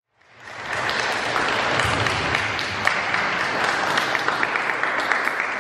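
Audience applauding, fading in over the first second and then steady.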